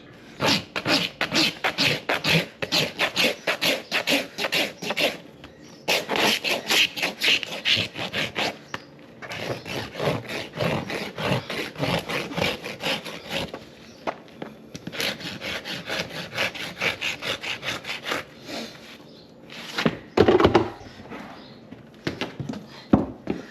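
Farrier's rasp filing a horse's hoof: quick repeated scraping strokes, about two to three a second, in runs of several seconds with short pauses between. A single louder thump comes about twenty seconds in.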